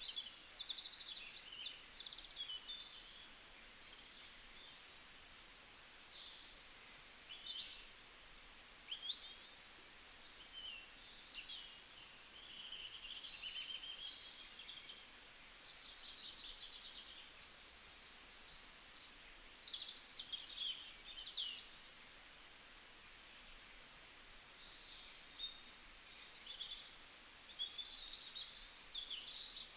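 Birds singing and calling: high chirps, rapid trills and short whistled notes coming in clusters, with quieter spells between them, over a faint steady hiss.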